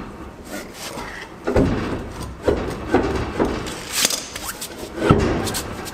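Steel trailer wheel with its tyre being worked onto the hub's lug studs: a string of irregular clunks and scrapes, the sharpest about five seconds in.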